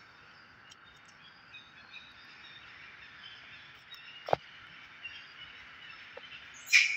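Outdoor ambience of faint bird chirps over a steady background hiss. A sharp click comes about four seconds in, and a brief, loud, high-pitched sound comes near the end.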